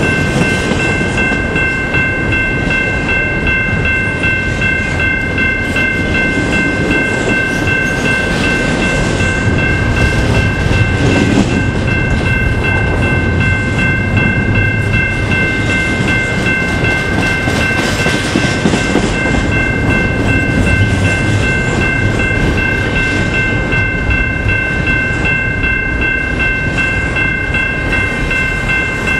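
Double-stack container train of well cars rolling past: a steady rumble and clatter of steel wheels on the rails, with a steady high-pitched whine above it.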